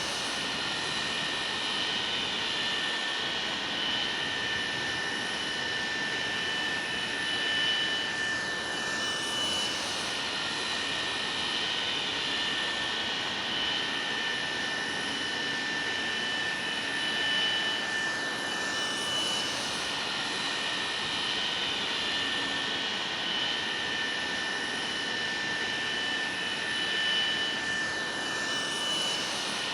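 Kawasaki C-1 transport's twin JT8D turbofan engines running steadily with a high whine, with a faint falling sweep in pitch about every nine to ten seconds.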